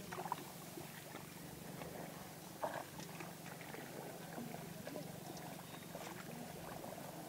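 Hands sloshing and squelching in shallow muddy water while groping for fish, with two sharper splashes, one just after the start and one about two and a half seconds in, over a steady low hum.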